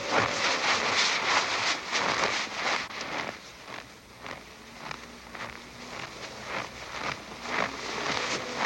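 Footsteps crunching in snow, about two a second, with the scrape of a hauled load over the snow. The steps fade somewhat in the middle and grow louder again near the end.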